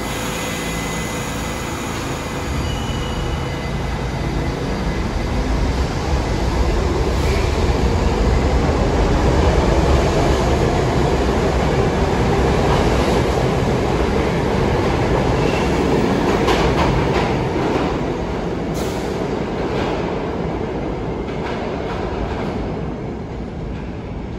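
New York City subway train moving along the station tracks: a steady rumble that swells to its loudest about ten seconds in and then fades, with a run of clacks while it is loudest.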